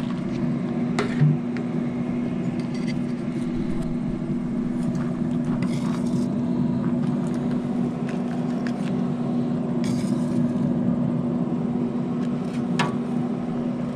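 Pellet smoker's fan motor humming steadily with its lid open, with a few light clicks and scrapes from a plastic spatula on the metal grill grate as the fillets are lifted off.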